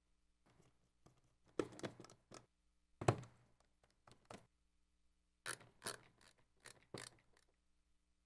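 Scattered light clicks and taps of small screws, washers and a screwdriver against a plastic fan frame as a case fan is screwed onto a liquid CPU cooler's radiator. The sharpest click comes about three seconds in.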